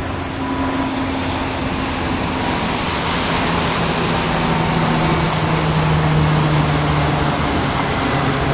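Surf noise with a steady engine drone over it, the drone's pitch dropping a little about three seconds in and getting slowly louder.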